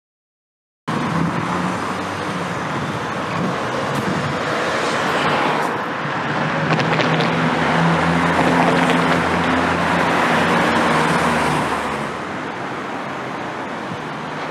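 City street traffic noise that starts abruptly about a second in: cars running past, with a vehicle's low engine hum growing louder in the middle and easing off about twelve seconds in.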